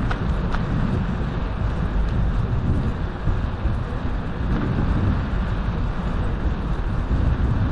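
Wind noise on the microphone of a moving bicycle, with the knobby tyres rolling on an asphalt path: a steady, low noise, with two faint ticks in the first second.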